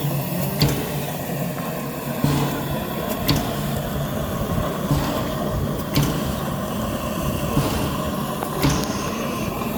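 A railway train running with a steady rumble and hum, and a sharp knock about every second or so.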